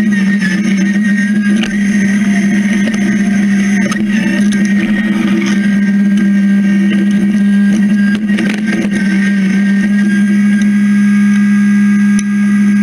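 John Deere 1023E compact tractor's three-cylinder diesel engine running steadily, a constant droning hum.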